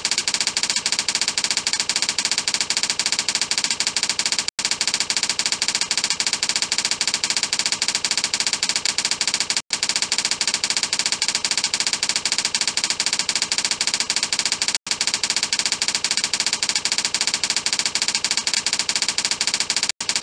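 Typewriter sound effect: a fast, unbroken clatter of key strikes playing on a loop, with a brief break about every five seconds, as the text types itself out letter by letter.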